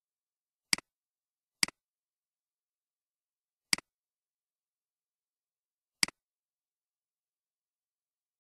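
Four sharp computer mouse clicks, irregularly spaced, each a quick press-and-release pair, with silence between them.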